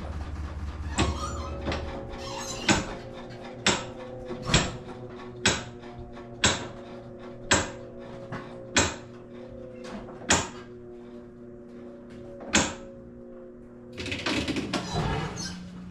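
Whirlpool washing machine running with a steady hum, one tone slowly falling, while it makes sharp clicks about once a second, the weird clicking noise it is known for. The clicks space out and stop a couple of seconds before the end.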